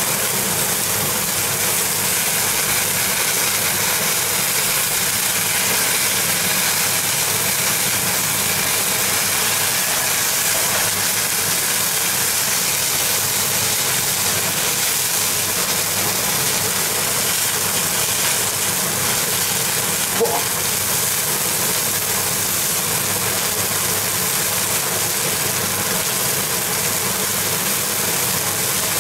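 Steady whoosh of a running fan mixed with a veal chop sizzling on a Severin steak board's grate at very high heat. One brief clink comes about twenty seconds in.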